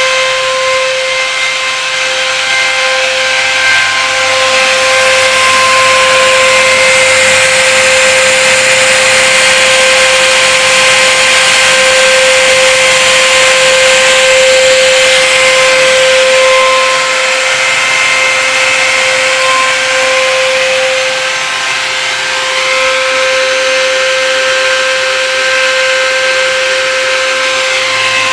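The spindle of a homemade wooden-framed CNC mill running at a steady high whine while the cutter mills acrylic, with a rushing cutting noise that swells and eases as the tool moves through the plastic.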